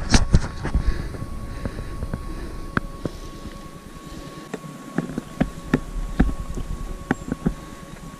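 Irregular taps and scuffs of a climber's hands, shoes and gear against rock while scrambling, with some wind rumble on the microphone.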